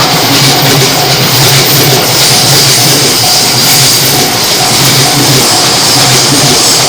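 Japanese level-crossing warning alarm ringing, its electronic tones repeating about one and a half times a second, over the steady rushing noise of a train.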